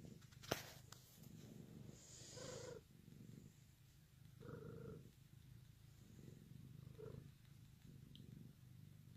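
Domestic cat purring steadily while being petted, the purr swelling and easing with each breath. A single sharp click sounds about half a second in.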